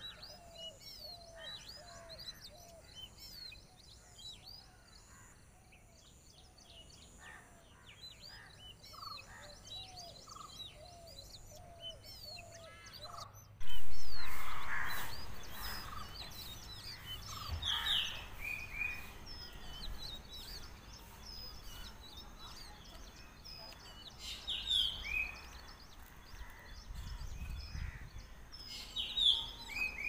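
Many birds chirping and calling, with short calls repeated every second or so. About halfway through, a sudden loud sound breaks in and fades away over a few seconds, and the birds carry on calling after it.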